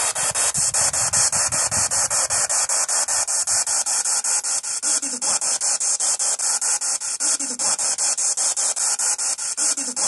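Spirit box radio sweeping through stations: a loud hiss of static chopped into rapid, regular pulses several times a second, with a few brief faint snatches of broadcast sound caught in the sweep.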